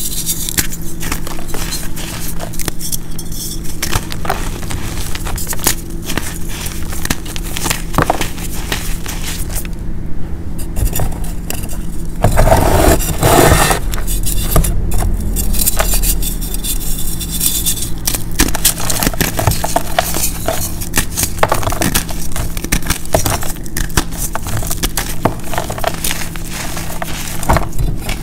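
Pressed blocks of gym chalk mixed with baby powder, cornstarch and baking soda being squeezed and crumbled by hand: dense crackling crunches and powdery scraping, with a louder crush about halfway through.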